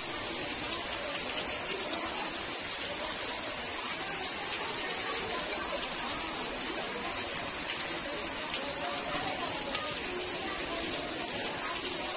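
Heavy monsoon rain pouring down steadily: a dense, even hiss of falling water with scattered ticks of drops.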